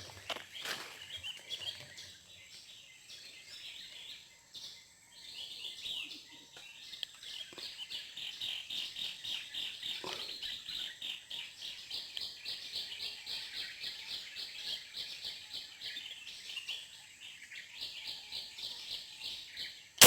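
Many small birds chirping, a dense run of quick, high repeated notes that thickens about five seconds in and keeps going. A sharp, loud crack comes at the very end.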